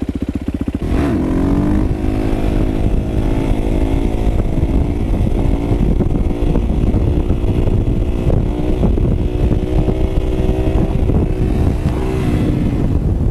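Dirt bike engine idling for about a second, then revving up and running hard under throttle, its pitch rising and falling as the bike accelerates and is ridden on its back wheel.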